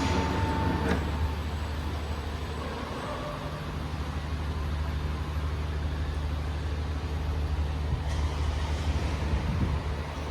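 A vehicle engine running steadily at idle, a low even hum; about three seconds in, another low note joins it.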